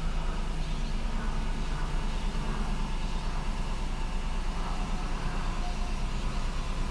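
Steady low rumble and hum with a hiss over it, like a vehicle's cabin with something running.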